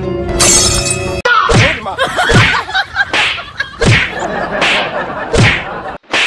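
A run of about six hard slap-and-punch sound effects, roughly one every three-quarters of a second, each with a falling thud beneath it. They follow a short bright noisy burst near the start.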